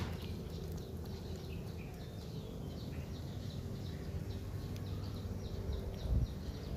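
A run of short, high, falling chirps, about three a second, over a steady low rumble. A few heavy low thumps come near the end.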